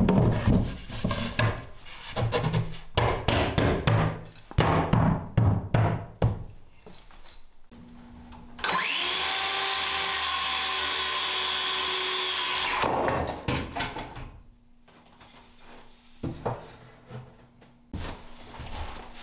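Cordless circular saw cutting a wooden board for about four seconds near the middle, spinning up, running with a steady high whine under the cut, and stopping. Before it comes a run of knocks and clunks from wooden panels being handled, and a few lighter knocks after it.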